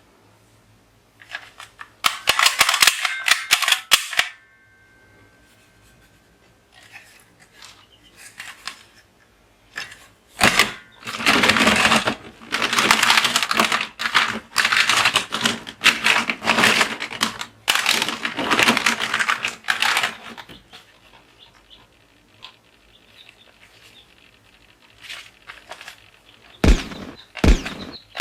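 Toy guns firing in rapid, machine-gun-like bursts of clicks and bangs. There is a short burst a couple of seconds in, several long bursts through the middle, and a few sharp single shots near the end.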